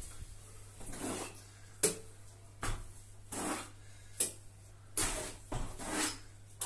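Steel trowel scraping sand-and-cement base plaster: scooping it from a plastic bucket and off a hawk and spreading it onto a rough rendered wall, in a run of short scrapes about one every half second to a second.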